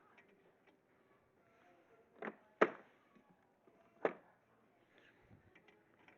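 Three sharp metallic knocks of hand tools, a socket and wrench being handled and fitted on a car's rear wheel hub; the second is the loudest.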